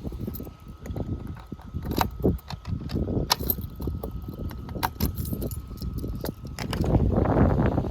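Keys jangling with clicks, knocks and footsteps as a door is unlocked and gone through, with a faint steady high tone underneath and a louder stretch of rustling noise near the end.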